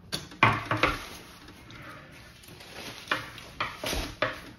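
Short, sharp knocks and clatters of tableware at a meal: about four in the first second, quiet for a while, then another four near the end.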